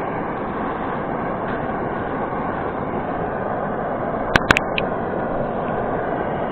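Steady hiss of a butane torch lighter's flame burning, with a couple of sharp clicks a little past four seconds in.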